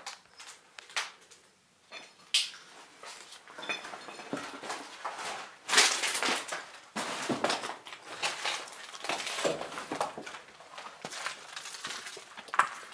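Footsteps crunching and scraping over debris on a littered floor, with irregular clicks and clinks and a sharper crunch about six seconds in.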